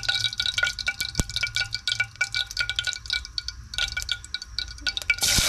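Hot cooking oil crackling and spitting in a stainless-steel pot, over a faint steady high ringing tone. Near the end, sliced onions go into the oil and it breaks into a loud, even frying sizzle.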